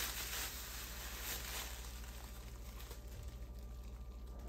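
Plastic bubble wrap crinkling and rustling as it is pulled off a glass bottle. It is loudest for the first second and a half or so, then goes on more faintly.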